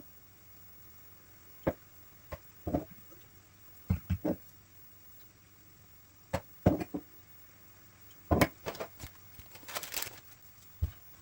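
Light knocks and clicks of objects being handled and set down, coming at irregular intervals with a short rustle about ten seconds in.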